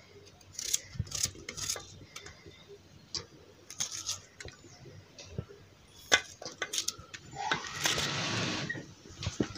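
Green chillies being split by hand and dropped, with small onions, onto dry toor dal in an aluminium pressure cooker: scattered light clicks and taps, and a longer rustle about eight seconds in.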